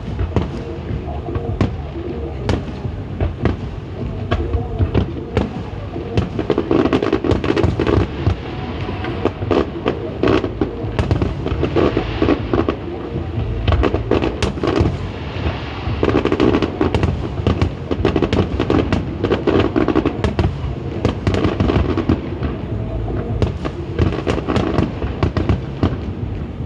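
Aerial fireworks display: a dense, irregular string of bangs and crackles from bursting shells, going on without a break.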